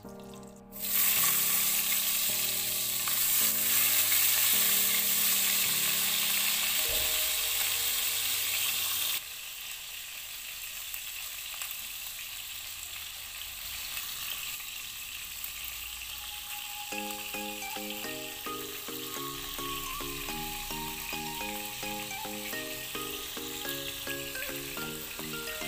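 Chilies, shallots and garlic frying in hot oil in a wok, a loud steady sizzle that starts about a second in and drops suddenly to a quieter hiss about nine seconds in. Background music plays throughout.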